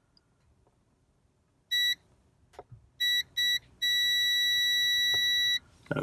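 Digital multimeter's continuity beeper: three short beeps, then one steady beep lasting nearly two seconds. The beeps mean the probe, stabbed through the keyboard membrane, is making contact and there is continuity between the two test points.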